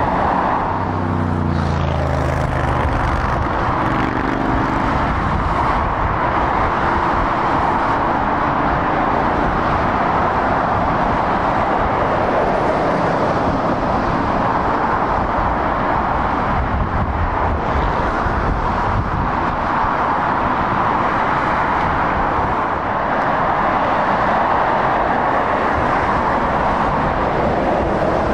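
Steady motorway traffic: tyre noise of cars and lorries passing at speed. A second or so in, a heavy truck's engine note drops in pitch as it goes past.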